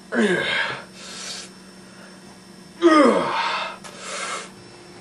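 A man grunting with exertion as he works hand weights: two strained grunts that slide down in pitch, near the start and about three seconds in, each followed by a quick breath.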